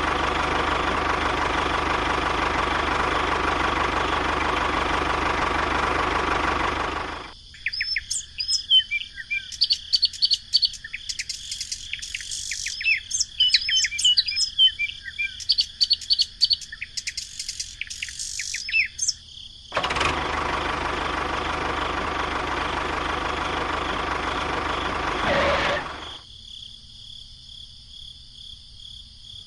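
Birds chirping: about twelve seconds of short, quick, high chirps. Before and after the chirping, a loud steady noise runs for several seconds each time. Near the end only a faint steady high trill like crickets remains.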